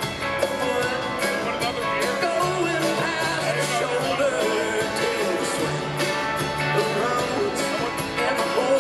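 Live country band playing a song in concert.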